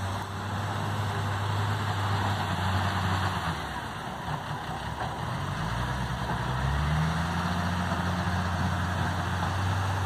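Diesel engine of a wheel loader running steadily, with a low hum. It revs up, rising in pitch, about six seconds in.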